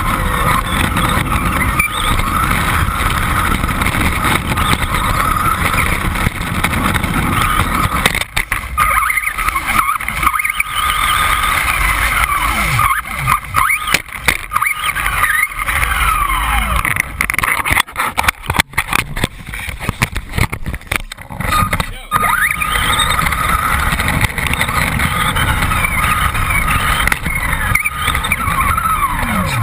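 Radio-controlled buggy's motor running hard, heard from a camera mounted on the car, its whine sliding up and down in pitch as it speeds up and slows. Sharp knocks and rattles cluster in the middle as the buggy bounces over the track.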